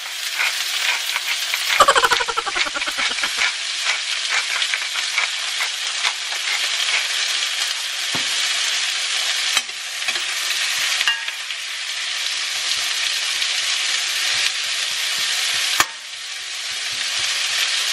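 Sliced red onions frying in oil in a stainless steel pan, with a steady sizzle as they soften. There is a brief loud rattle about two seconds in, then a few sharp clicks of the metal spoon against the pan.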